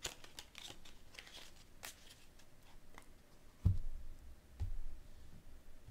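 Tarot cards being handled and shuffled: light papery clicks and rustles, then two soft low thumps about a second apart a little past halfway.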